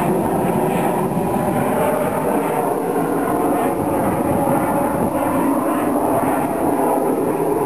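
Snowbirds CT-114 Tutor jets flying over in formation: steady jet engine noise.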